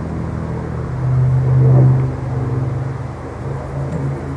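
Avro Lancaster's four Rolls-Royce Merlin V12 engines droning steadily in flight, swelling louder about a second or two in, then easing off.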